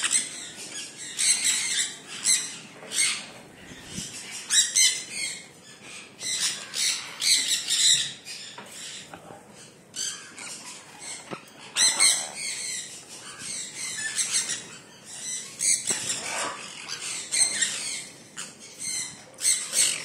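A flock of sun conures giving many short, shrill squawks and chirps at irregular intervals as they feed together.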